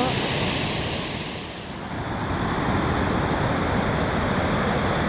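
Steady rushing roar of Victoria Falls, the Zambezi's water pouring over the cliff, dipping briefly about a second and a half in.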